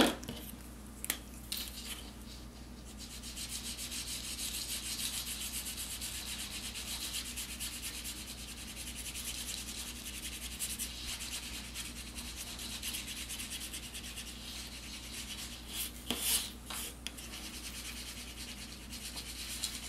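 Water-brush bristles scrubbing over watercolor paper in rapid short strokes, a quiet, fine rubbing hiss that starts about three seconds in, blending watercolor-pencil color into a wash. A few light taps come near the end.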